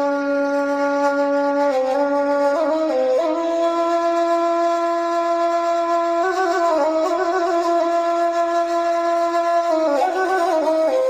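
A wind instrument plays a slow melody of long held notes with no break for breath. It steps up to a higher note about three seconds in, wavers around the note changes, and drops back down about ten seconds in.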